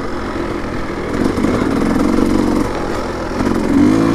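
Small 50cc dirt bike engine running while riding, its pitch rising as it revs up about three and a half seconds in.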